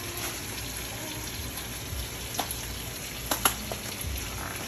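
Steady sizzling and bubbling of stovetop cooking: a wide pot of water at a rolling boil, with sausage pieces frying in oil in a pan. A few sharp clicks, the loudest pair about three and a half seconds in.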